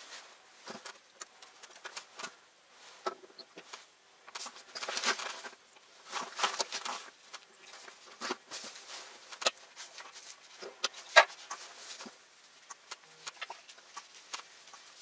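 Fishing gear being handled: irregular rustling with small clicks and knocks. There are louder stretches of rustling about five and six and a half seconds in, and a sharp click about eleven seconds in.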